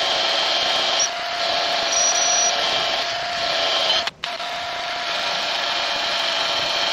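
Cordless drill running steadily under load as it bores into an old timber board, cutting out for a moment about four seconds in before running on.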